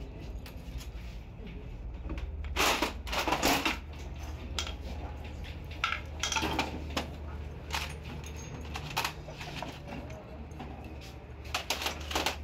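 Metal engine parts clinking and scraping as a motorcycle-type engine crankcase and gearbox are handled and assembled, over a steady low hum. The loudest scraping comes about three seconds in, with more around six seconds and near the end.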